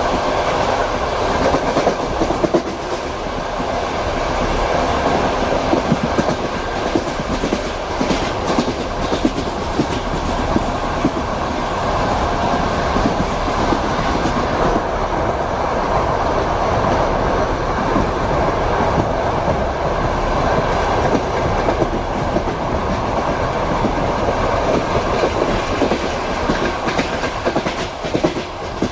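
Passenger train running steadily as heard from inside a compartment: a continuous rumble with the clickety-clack of wheels over rail joints and scattered sharper knocks.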